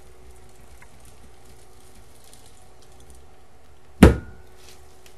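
A single sharp clack about four seconds in, as the frame of a multi-wire soap loaf cutter is pushed down through a loaf of cold process soap and strikes its metal base, with a short ring after it. Otherwise only a faint steady hum.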